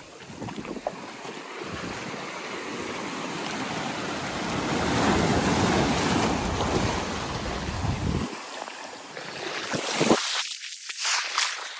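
Surf washing on a beach, swelling to its loudest about halfway through, with wind buffeting the microphone. About eight seconds in the sound changes abruptly to thinner, gusty hiss.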